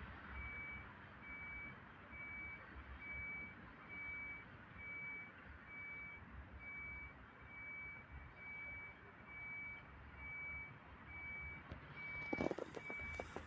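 Vehicle reversing alarm beeping steadily, one high tone about once a second, over a low background rumble. Near the end, a short, louder burst of close clicking and rustling.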